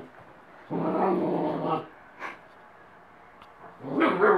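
White Swiss Shepherd puppy growling steadily for about a second, then a louder, rougher bark starting near the end.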